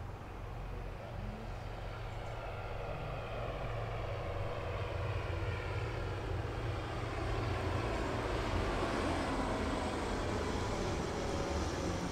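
A passing vehicle growing steadily louder, with several tones gliding slowly downward as it goes by.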